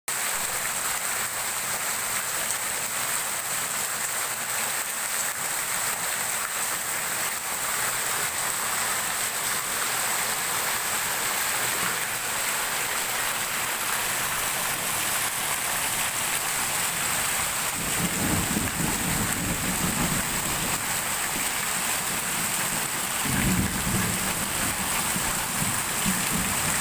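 Heavy downpour, a steady dense hiss of rain falling. Twice in the second half a low rumble rises under it for a few seconds.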